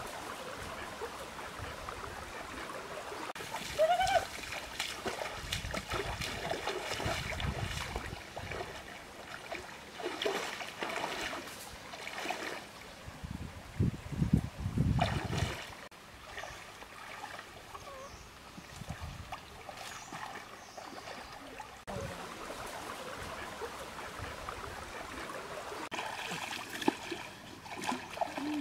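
Water splashing and trickling in uneven bursts, with sharper splashes about four seconds in and again near the middle.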